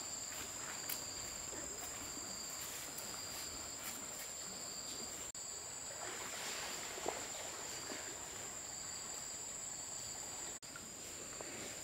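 Insects, crickets or cicadas, droning steadily at a high pitch, with a second, lower chirp coming and going in the first half. A soft knock about seven seconds in.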